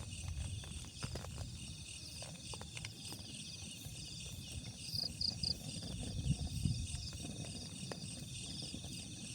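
Steady, pulsing chirring of insects, with three short higher chirps a little after halfway. Underneath runs an uneven low rumble with a few soft clicks.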